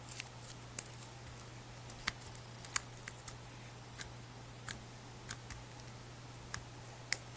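Black glitter glue slime squished and stretched by hand, giving about a dozen small sticky clicks and pops at irregular moments.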